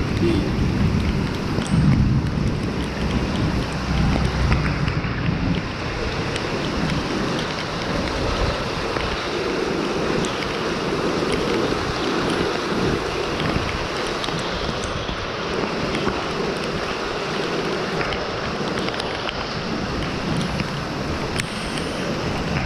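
Steady rain falling, with wind buffeting the microphone, heaviest in the first few seconds.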